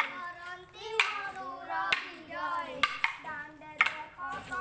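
Wooden sticks clacked together about once a second in a danda nach stick dance, with boys singing the dance song between the strikes.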